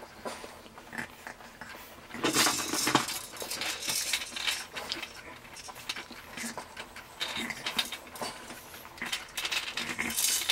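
French bulldog puppy chewing and mouthing a plastic rattle toy: irregular clicks and clattering of hard plastic, busiest about two to three seconds in and again near the end.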